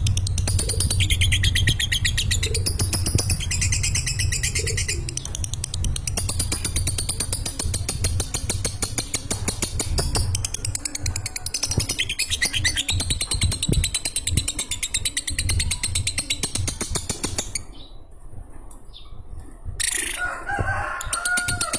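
Lovebird ngekek: a long, unbroken run of very fast, high-pitched chattering. It breaks off about eighteen seconds in and starts again near the end, over a low steady hum.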